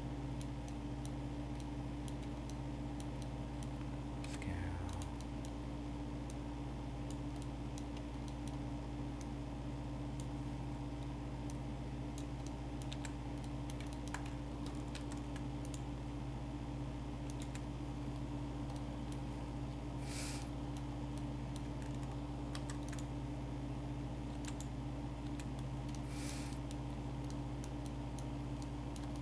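Scattered clicks of a computer keyboard and mouse, over a steady low electrical hum. Two short, louder noises come about two-thirds of the way through.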